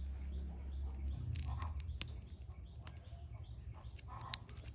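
Scattered small clicks and ticks from handling a wristwatch's solid steel bracelet and clasp, with one sharper click about four seconds in, over a low steady hum.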